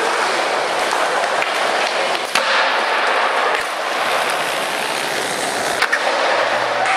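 Skateboard wheels rolling on a smooth concrete floor, a steady rushing noise, with two sharp clacks of the board: one a little over two seconds in and one near the end.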